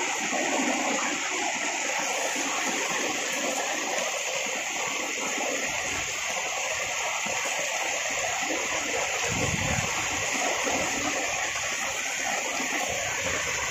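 Heavy rain pouring steadily: a dense, even hiss of rain on the ground and roof.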